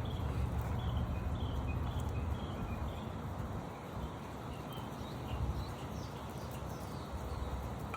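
Small birds chirping with short, repeated high notes, a few sliding downward, over a steady low rumble.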